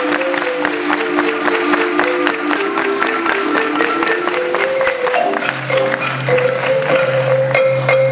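Marimba and acoustic guitar playing live: a quick run of struck notes that settles, about five and a half seconds in, onto long held closing notes.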